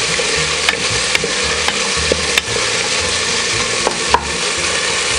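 Sliced red onions and garlic sizzling in hot oil in a pressure cooker pot, being sautéed and stirred with a wooden spatula. The spatula gives several short scrapes and taps against the pot over a steady sizzle.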